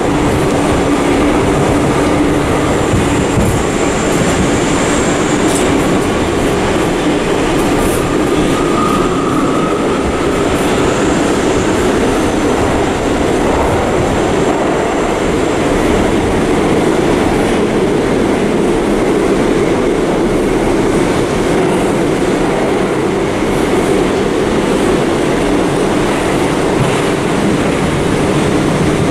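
R179 subway car running on the rails, heard from inside the car: a steady, loud rumble of wheels and track, with a faint high squeal a few seconds in.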